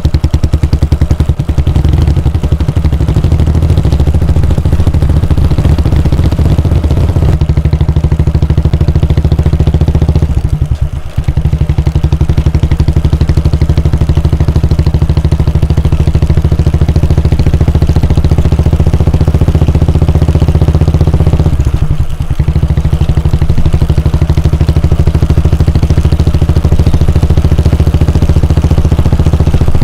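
Royal Enfield Bullet 350's air-cooled 349 cc single-cylinder engine running with its steady exhaust thump. The sound dips briefly twice, about a third and about two thirds of the way through.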